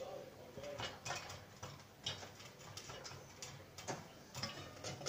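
Popcorn kernels popping in a pot on the stove: scattered, irregular pops, a couple each second.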